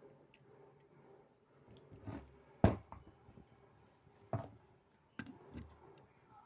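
A handful of sharp clicks and knocks from an ATM card reader's parts being handled and fastened on a bench, the loudest about two and a half seconds in.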